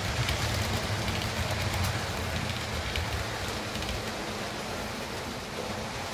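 H0-scale model trains running on the layout's track: a low motor hum under a steady hiss, with faint clicks of wheels over rail joints.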